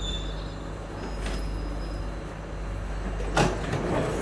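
Singapore MRT train standing at a platform with its doors open: a steady low hum from the train's equipment, with a high tone fading out at the start and a single sharp knock about three seconds in.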